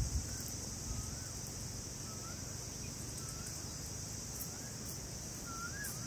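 Steady high-pitched insect drone, with a bird repeating a short whistled note that rises and then falls, about once a second.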